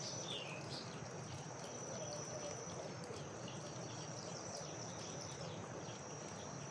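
Faint rural outdoor ambience of insects calling with a steady high-pitched tone, with a few short bird chirps about half a second in.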